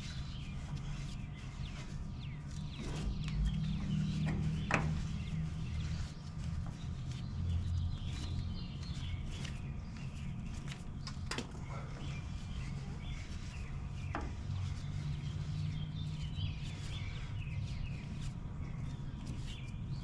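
A semi-trailer wheel hub turned by hand on its spindle while the spindle nut is run up by hand, pushing the new REV HD wheel seal up onto the spindle shoulder. There are three sharp clicks spread through it, over a steady low hum.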